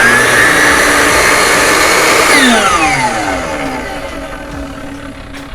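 Makita 16-inch circular saw (beam saw) running free without cutting: its motor whine climbs to full speed, then the trigger is let go a little over two seconds in and the whine falls steadily in pitch and fades as the motor and blade coast down.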